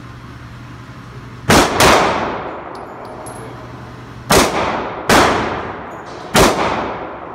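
Handgun shots on an indoor range: five shots at uneven spacing, a quick pair about a second and a half in, then three single shots, each followed by a ringing echo off the range walls.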